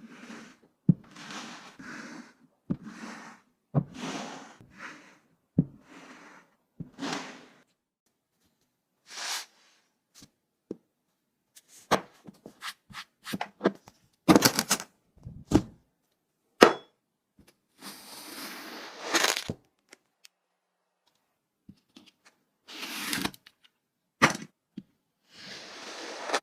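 Hands working slime: a series of separate clicks, knocks and short squishy or rustling noises, about one a second in the first seven seconds, then scattered clicks and a few longer hissy smears with short silences between.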